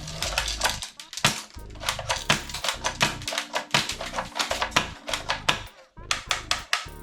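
A fast, irregular run of sharp clicks, several a second, over background music with a bass line; the clicking pauses briefly about six seconds in, then starts again.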